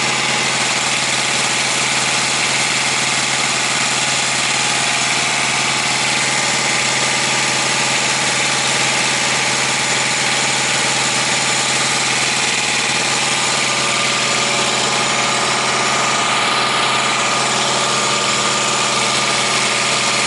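A semi truck's auxiliary power unit, a small diesel engine, idling steadily with no change in speed.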